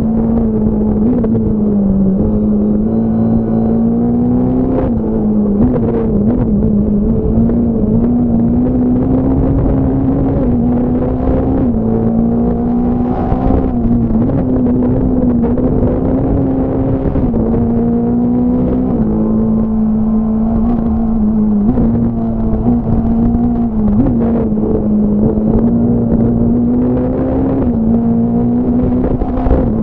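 Fiat Punto S1600 rally car's four-cylinder engine at racing speed, heard onboard: held at high revs, its note dropping briefly and climbing again at each quick gear change, with short knocks now and then.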